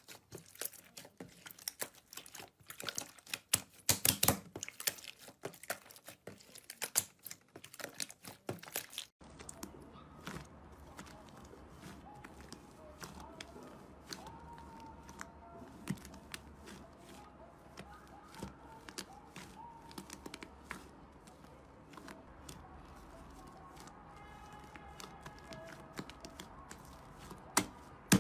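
Slime being squeezed and poked, giving dense crackling and popping clicks. About nine seconds in the sound changes abruptly to a quieter clip with sparser clicks over a steady low background noise.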